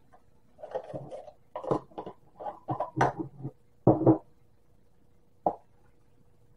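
A plastic measuring cup is knocked and tapped against a plastic funnel on a glass jar to shake out the last of a dry powder. It makes a cluster of irregular knocks and rattles, then a single click about five and a half seconds in.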